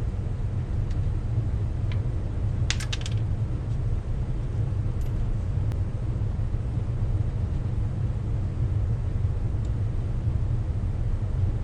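Steady low rumble, with a quick run of sharp clicks about three seconds in and a few faint ticks elsewhere.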